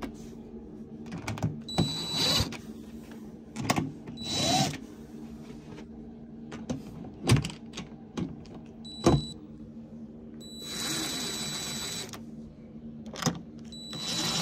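Cordless drill/driver driving the cover screws of a solar inverter in short bursts, its motor whining for a second or so at a time, four runs in all, the longest just past the middle. Sharp knocks and clicks of the cover and tool being handled fall between the runs.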